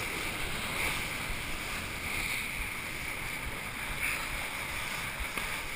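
Steady rush of wind and water as a kiteboard planes across the sea at high speed, picked up by a chest-mounted GoPro.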